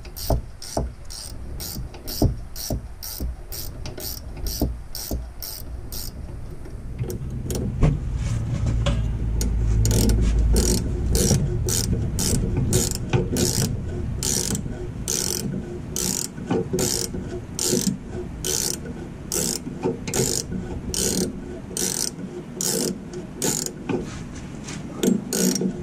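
Ratcheting wrench clicking on the 14 mm top nut of a Jeep TJ front shock absorber, in a steady run of strokes at about two to three clicks a second, with a short pause about six seconds in and a low rumble around ten seconds in. The shock's shaft is spinning with the nut, so the nut is not coming off.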